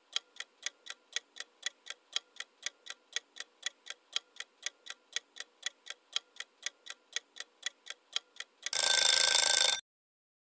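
Quiz timer sound effect: clock-like ticking, about four ticks a second, for about eight and a half seconds. Then a short, louder buzzer-like alarm of about a second marks that time is up.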